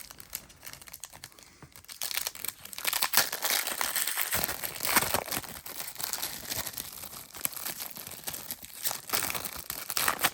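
Plastic trading-card pack wrappers crinkling and tearing as packs are ripped open by hand, dense crackly rustling that starts about two seconds in.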